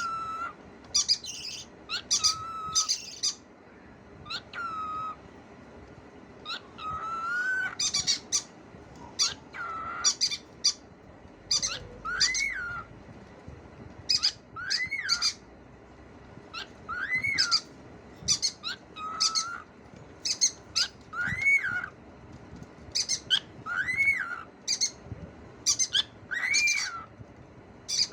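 Cockatiel calling: sharp, high chirps alternating with whistled notes that rise and then fall, repeated every two to three seconds.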